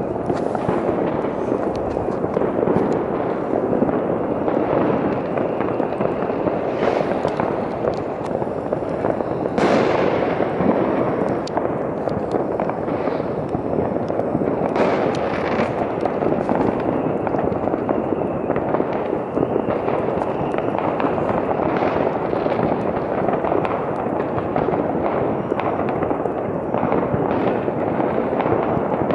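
Fireworks and firecrackers going off in a dense, unbroken crackle of many bangs, with a few louder single bangs about 7, 10 and 15 seconds in.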